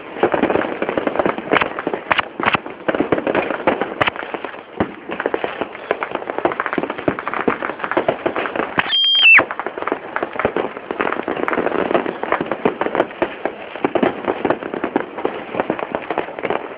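Fireworks display: a dense, continuous barrage of bangs, pops and crackles from many fireworks going off at once. About halfway through, a high steady tone sounds for about half a second, then drops in pitch and stops.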